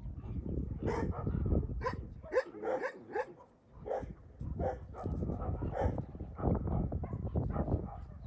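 Dogs barking and yipping in short, repeated calls over a low, uneven rumble.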